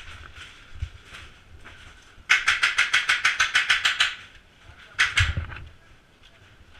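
Airsoft gun firing a full-auto burst, a rapid even rattle of about seventeen shots at roughly ten a second, lasting under two seconds. About a second later there is a shorter noisy crack with a low thump.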